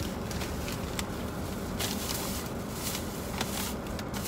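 Rustling and soft knocks of items being handled while someone rummages through a shopping bag inside a car, over a steady low rumble.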